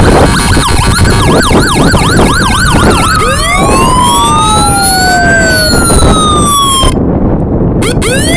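Electronic emergency-vehicle sirens, a Code 3 Mastercom and a Federal Signal, sounding loud. A fast yelp starts about a second in, then gives way to slow wails, with two tones gliding at once, one rising while the other falls.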